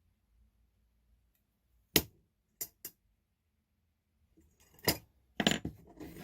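Small metal tools and parts being handled on a workbench: a sharp clink about two seconds in, two lighter clinks just after, then a cluster of clattering and knocks near the end.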